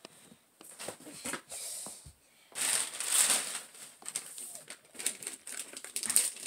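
Paper crinkling and rustling as presents are unwrapped. It is loudest for about a second, starting around two and a half seconds in, with lighter crackles and rustles around it.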